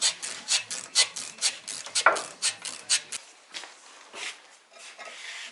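Rapid rhythmic scraping strokes, about four or five a second, dry and bright like a brush or file worked back and forth on a metal part. They thin out to a few fainter strokes after about three seconds.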